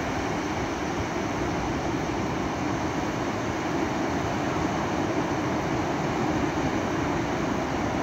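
Ocean surf on a sandy beach: small waves breaking offshore and shallow water washing up the sand, a steady rushing noise with a low rumble underneath.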